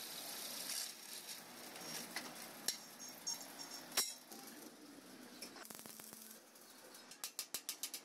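Steel workpieces clinking and knocking as they are handled: two sharp metal knocks a little over a second apart, then a quick run of about eight light metallic taps near the end.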